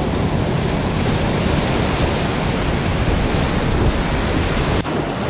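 Whitewater rapids rushing on a river running high, a dense steady wash of water noise with wind buffeting the microphone. The sound breaks sharply a little before the end.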